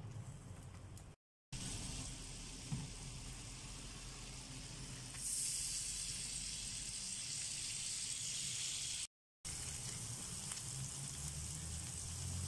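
Minced chicken burger patty frying in hot oil in a pan, sizzling steadily. The sizzle gets louder about five seconds in, and the sound drops out briefly twice.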